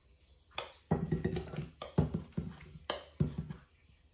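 Creamy fruit salad being scraped with a spatula out of a plastic mixing bowl into a plastic container: a string of about six soft knocks and wet scrapes.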